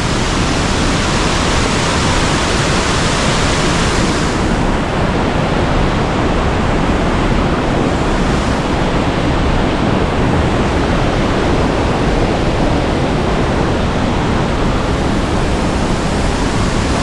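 Steady, loud rushing of a nearby waterfall, with the high hiss thinning a little about four seconds in.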